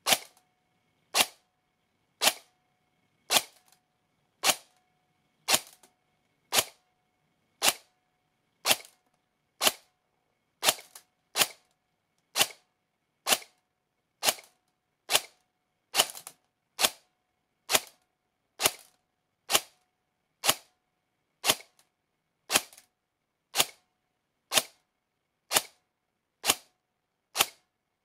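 Airsoft electric gun (AEG) firing single semi-automatic shots, evenly at about one a second, some thirty in a row, each a short sharp snap.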